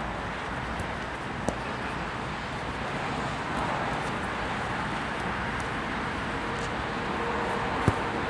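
Steady outdoor background rush with two sharp thuds of a futsal ball being kicked on artificial turf, one about a second and a half in and a louder one near the end.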